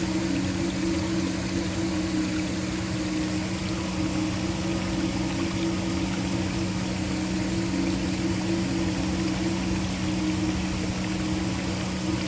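Waterfall rushing steadily, with a low, steady background drone underneath.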